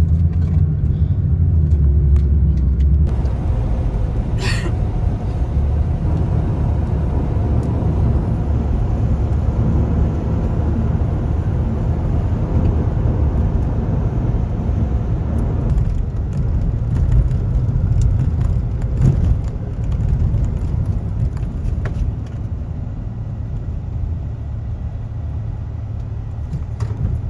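Steady low rumble of a car moving on the road, with a brief high-pitched squeak a little over four seconds in.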